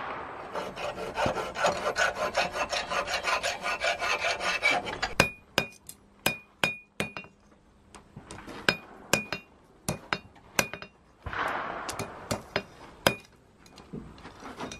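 Fast back-and-forth scraping of a hand tool on the steel of a forged fork held in a vise, for about five seconds. Then single hammer blows on the steel on the anvil, spaced irregularly, each with a short ringing tone, broken by another brief spell of scraping.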